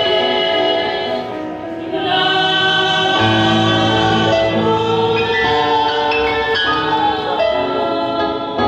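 Women's choir singing a hymn in harmony, holding long notes, with a short break between phrases about one and a half seconds in.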